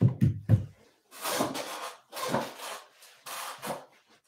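A few heavy knocks in quick succession, then three separate stretches of rubbing or scraping, each about half a second to a second long.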